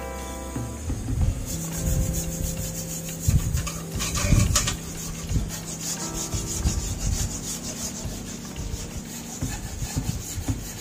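Air-powered rotary wire brush spinning with a steady whine and scratching against rusty sheet steel as it scours the panel, louder in a few bursts as it is pressed harder.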